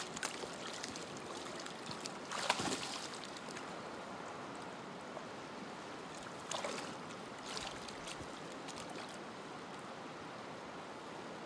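River current rushing steadily, with three short splashing swishes as the spey-cast fly line is worked on the water, the loudest about two and a half seconds in.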